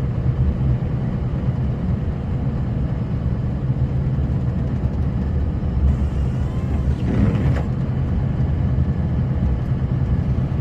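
Snowplow truck driving fast through deep snow, with a steady low drone of engine, road and plow.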